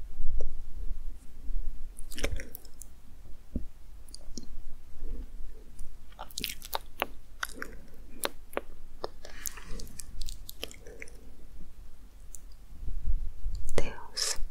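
Close-miked ASMR trigger sounds: soft, wet clicks and crackles, irregular and scattered, coming thicker around the middle and again near the end, over a faint low rumble.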